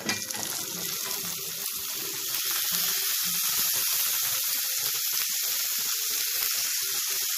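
Sliced long beans sizzling in hot oil in a wok, a steady frying hiss that grows louder about two seconds in.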